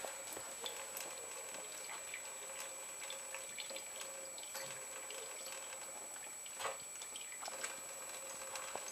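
Thin stream of water from a kitchen tap running into a stainless steel sink, with many small clicks and splashes as a cat laps at the stream. One slightly louder splash comes about two thirds of the way through.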